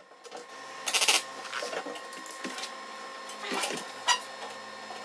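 Short crackling bursts of tack welding on a steel divider plate, the loudest about a second in and two more near the end, over a steady electrical hum.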